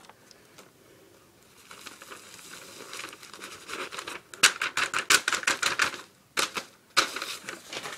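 Firework powder emptied from Piccolo Petes poured off a creased sheet of paper into a plastic Ziploc bag: a dense run of quick crackling ticks, with the plastic crinkling. It starts about two seconds in and is loudest around the middle, pausing briefly near the end.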